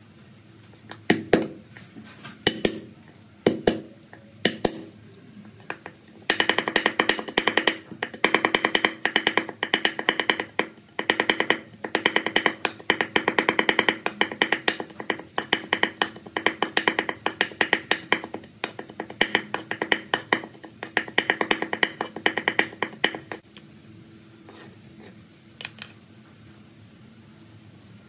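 A broad-bladed kitchen knife chopping garlic on a wooden cutting board. A few separate chops come first, then fast, continuous mincing of several strokes a second, which stops about 23 seconds in.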